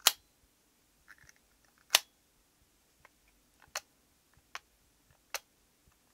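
The magnetic push cap of a Montblanc M ballpoint pen clicking off and onto the barrel: two sharp clicks about two seconds apart, then several fainter ticks.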